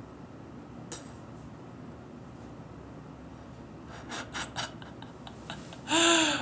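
Faint room noise with a light click about a second in and a few small taps a little after halfway, then a short, loud, high-pitched vocal sound near the end that rises and falls in pitch.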